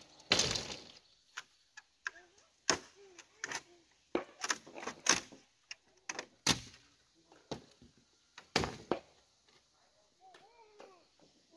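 Split bamboo strips and poles knocking and clattering against each other as they are handled and laid down: a series of sharp, hollow knocks at irregular intervals, the loudest just after the start.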